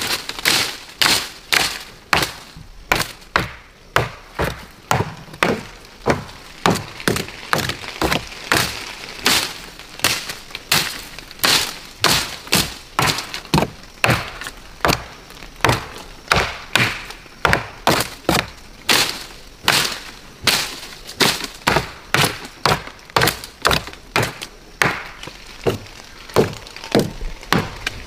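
A long, even series of sharp, woody cracks and knocks, about one or two a second.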